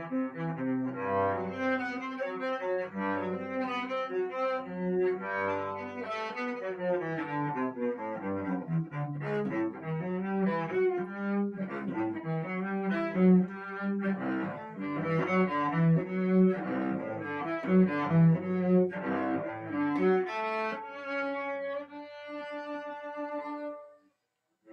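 Solo cello bowed by an adult learner about two years into playing: a continuous melodic passage of notes changing every half second or so. It ends on one long held note that stops suddenly near the end.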